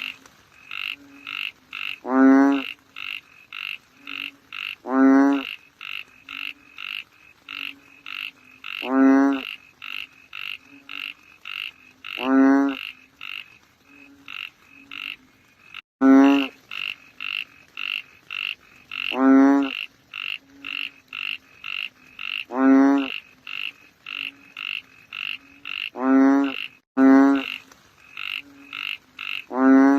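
Frogs calling: a loud, low, pulsing croak about every three seconds, each under a second long, over a steady chorus of short, higher-pitched calls two or three times a second.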